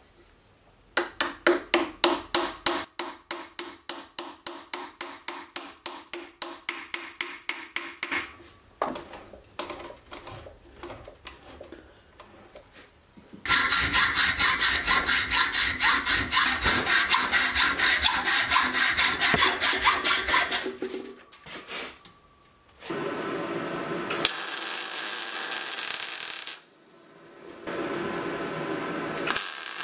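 A hacksaw cutting a steel rod clamped in a vise, with a steady run of fast back-and-forth strokes through the middle. Before it comes a run of quick, even strokes, and near the end two long hissing bursts.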